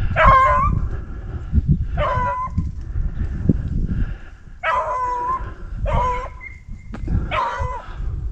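Beagles baying on a rabbit's trail: a string of about five or six drawn-out bays, each about half a second long and a second or so apart. The pack is running the rabbit.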